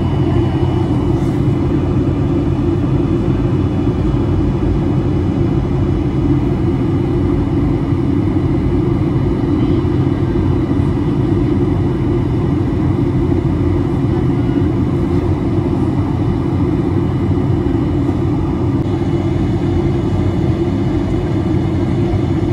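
Steady in-flight cabin noise of a jet airliner: an even, deep rush of engine and airflow noise with a faint steady high whine over it, unchanging throughout.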